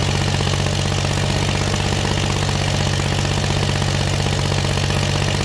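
A sawmill's V6 engine running steadily at an even speed.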